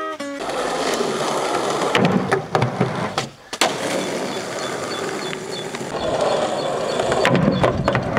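Skateboard wheels rolling on rough asphalt, with sharp clacks of the board hitting the ground, the loudest about two and three and a half seconds in.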